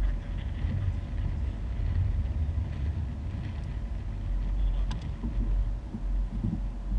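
A bass boat on open water: a steady low rumble with a faint steady hum underneath, and a single sharp knock about five seconds in.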